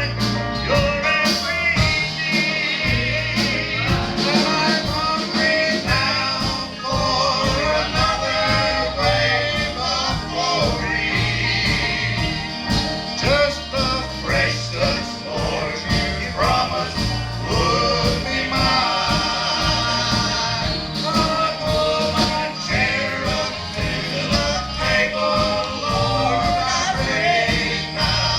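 Gospel music with a steady beat and singing.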